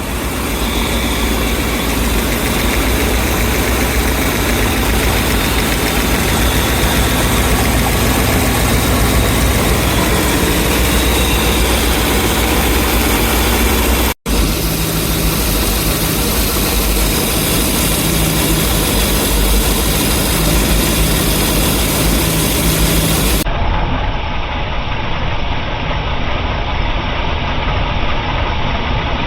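A 454 big-block Chevrolet V8 boat engine idling steadily. The owner reports a constant misfire on cylinder 8, with pops through the exhaust at 8° timing. The sound cuts out for a moment about halfway through, where one recording ends and the next begins.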